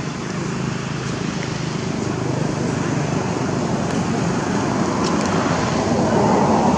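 Steady outdoor background noise, a continuous rushing haze that grows a little louder near the end.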